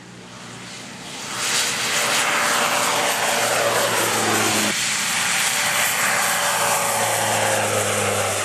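Cessna Grand Caravan turboprop with a 900 hp turbine engine upgrade taking off at full power. It grows sharply louder about a second in as it passes close by, and its pitch falls as it goes past and climbs away.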